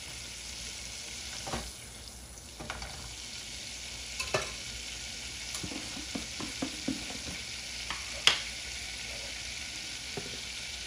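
Salted garlic-and-parsley butter melting and sizzling in a saucepan: a steady hiss with scattered light clicks and taps, the loudest about eight seconds in.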